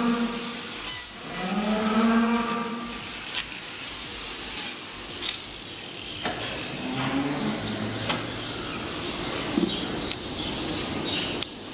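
Cow in a hoof-trimming chute mooing: one call ends just after the start and a second, longer one follows about a second in. Then come scattered sharp metallic clanks over a steady hiss.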